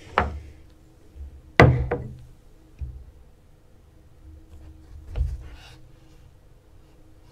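A few separate knocks, the loudest about a second and a half in, with quieter ones near the start, about three seconds in and about five seconds in.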